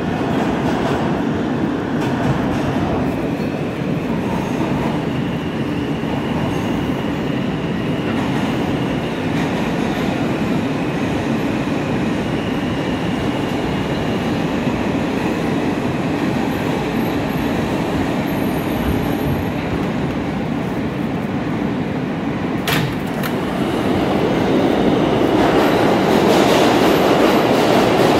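New York City Subway M train running through a tunnel and into a station: a steady rumble of wheels on rails, with a single sharp click about three quarters of the way through and the rumble growing louder near the end.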